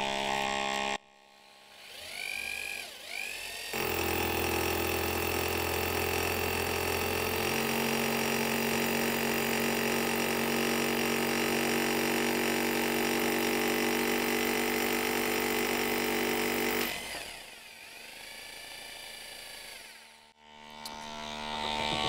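Bosch hammer drill boring into a brick through a Kärcher DDC 50 dust catcher: a short start-up burst a few seconds in, then steady drilling for about thirteen seconds, its tone shifting once partway through, before it spins down. The dust catcher's suction motor hums quietly after the drill stops.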